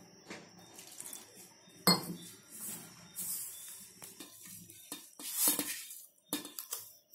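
Hands mixing wheat flour and water into dough in a stainless steel bowl: irregular scraping and rustling, with fingers knocking and clinking against the metal bowl, the loudest knock about two seconds in.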